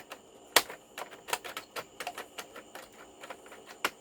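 Irregular clicks and knocks from working the height adjustment on a Kenmore Intuition upright vacuum with its motor off, the sharpest about half a second in and near the end. The adjustment is faulty: the owner calls it messed up and finds it doesn't seem to change anything.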